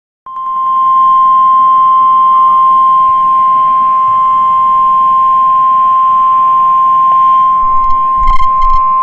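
NOAA Weather Radio warning alarm tone: a single steady high-pitched beep near 1 kHz, held for about nine seconds over faint radio hiss. It starts just after a brief silence and cuts off sharply. The tone signals that a warning message follows.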